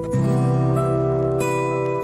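Background music: acoustic guitar chords played softly, with a chord change shortly after the start.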